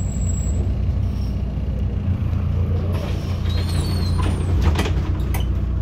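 MAZ-203 city bus heard from inside the cabin, its engine running with a steady low rumble as it comes to a stop. In the second half come short hisses of compressed air and several knocks from the air brakes and the pneumatic doors opening.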